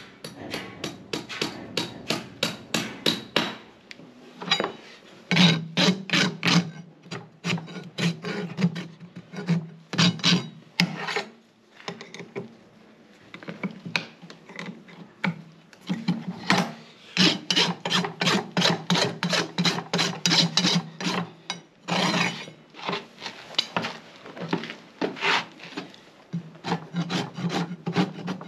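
Farrier's hoof rasp filing a horse's hoof wall: quick, rhythmic scraping strokes of about three a second, broken by a pause of about two seconds a little before the middle and shorter breaks later on.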